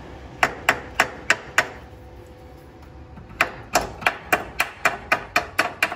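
Sharp hammer blows on metal while fitting a rear bump stop to a pick-up's axle: five quick strikes, a pause of under two seconds, then about ten more at roughly three a second, each with a brief metallic ring.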